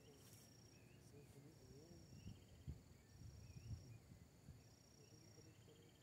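Faint insect chirping: a high, steady note in pulses of under a second, repeating about every second and a half, with a few fainter chirps between. A few soft low knocks in the middle.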